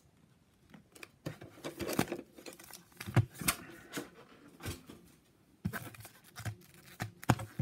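Handling of a metal Pokémon card tin and its foil booster packs: scattered clicks and knocks with light crinkling, a sharp knock near the end.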